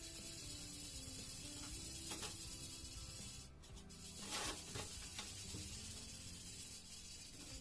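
A steady hiss, louder in a short rush about halfway through, over faint background music.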